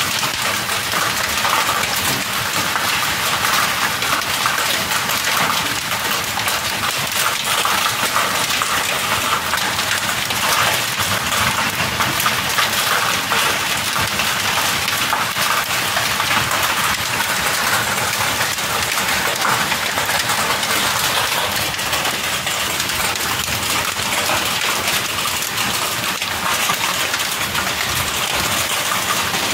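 Heavy rain mixed with hail pelting a corrugated metal roof: a steady, dense clatter of many small hits.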